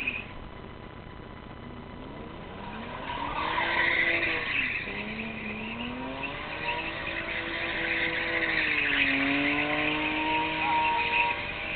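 A car's engine revving up and down while its tyres squeal and skid on the tarmac, as in a burnout or drift. The squeal swells twice, briefly a few seconds in and then for longer in the second half, while the engine pitch climbs and falls with each push of the throttle.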